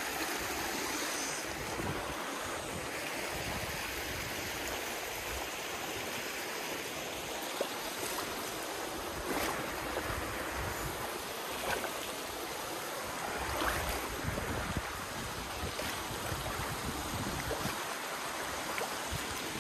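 Shallow mountain stream running over rock slabs: a steady rush of water, with a few faint clicks now and then.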